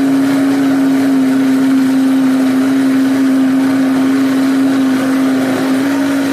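Electric countertop blender running at a steady high speed with water and alcohol vinegar in the jar, a loud constant motor hum with liquid churning: a rinse to clean out soap residue.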